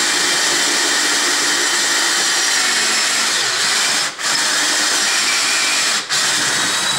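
Hand-held power drill boring through a steel plate with a sharp, larger twist bit, running steadily. It dips briefly twice, about four and six seconds in.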